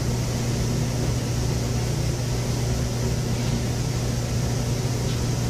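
Steady low hum with an even hiss: the background noise of an interview-room recording, with no distinct events.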